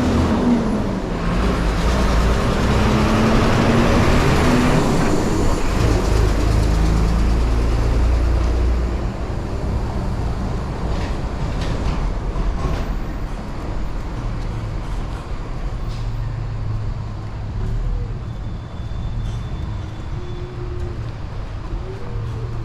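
Street traffic: a motor vehicle's engine passes close with a low rumble, loudest in the first several seconds, then eases off to quieter, steady traffic noise.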